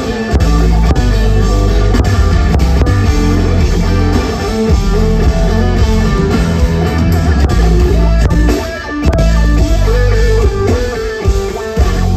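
Instrumental rock band playing live: electric guitar lines over heavy bass and drums, with a brief break about nine seconds in before the band comes back in.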